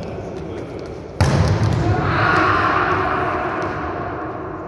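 A volleyball spiked hard: one sharp smack about a second in, ringing on in the echoing sports hall.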